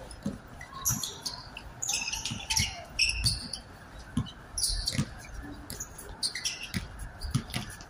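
Basketball bouncing on an outdoor hard court in irregular dribbles, with short high squeaks scattered among them.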